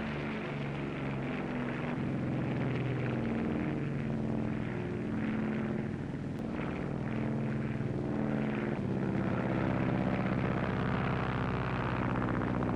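Propeller aircraft engine running steadily, its pitch shifting a few times, from a single-engine Tenzan torpedo bomber.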